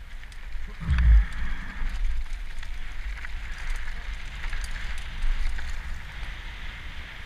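Mountain bike riding fast down a loose gravel forest track, heard from a helmet camera: a steady rush of tyres over gravel with small rattles and clicks, and wind rumbling on the microphone, loudest in a heavy low buffet about a second in.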